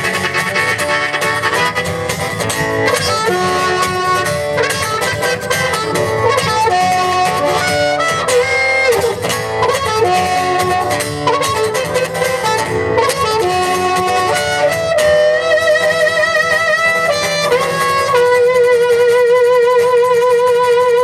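Live band playing an instrumental passage with no singing: a lead melody line over guitar accompaniment, ending on long held notes with vibrato.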